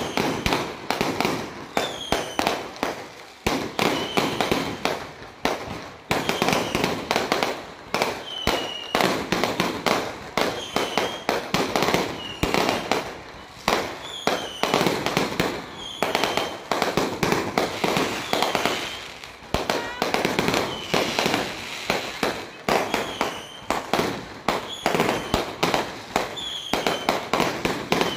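Fireworks display: a fast, unbroken string of bangs and crackling pops from aerial shells bursting overhead.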